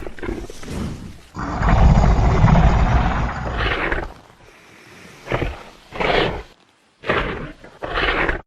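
Tyrannosaurus rex roar sound effect: a long, deep roar lasting about three seconds, then four short growls in quick succession, the last cutting off abruptly.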